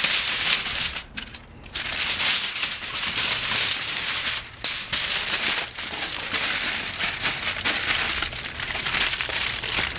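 Heavy-duty aluminium foil crinkling and crumpling as it is folded and pressed tightly around a brisket, with brief pauses about a second in and again around four and a half seconds in.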